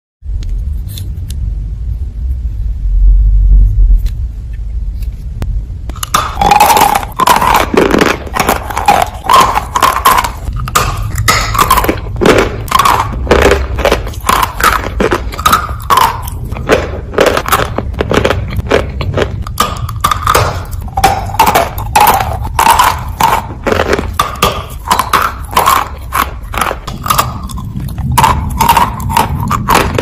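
Dense, loud crunching of dry Turkistan white clay being bitten and chewed close to the microphone, with sharp cracks following one another quickly. It starts about six seconds in, after a low rumble.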